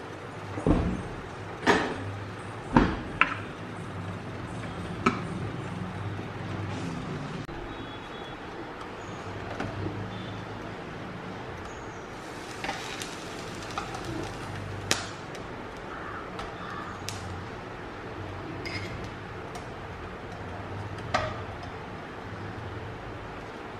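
Scattered sharp knocks and clinks of dishes, a glass coffee press and cutlery being set down on a kitchen counter, several close together in the first few seconds, over a low steady hum.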